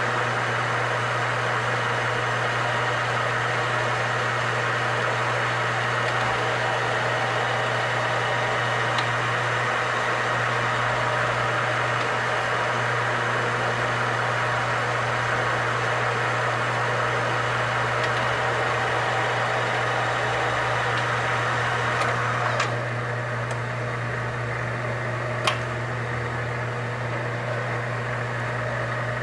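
Metal lathe running under power feed on a thread-chasing pass, its single-point threading tool riding in the threads of an aluminium part: a steady motor hum under a broad mechanical whir. A couple of clicks come a little over twenty seconds in, after which the whir drops, and a single sharp click follows a few seconds later.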